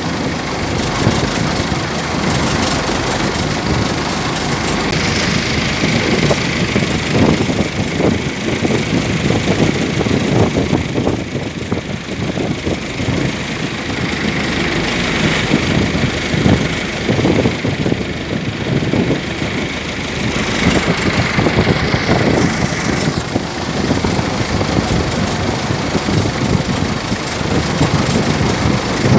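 Fishing boat's engine running steadily while under way.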